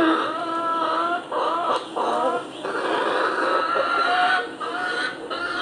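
Recording of a hen clucking, a continuous run of calls with short pauses.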